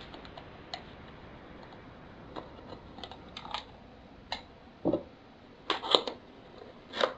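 Cardboard product box being cut open and handled: irregular small clicks and scratches, with a few louder scraping knocks in the last few seconds.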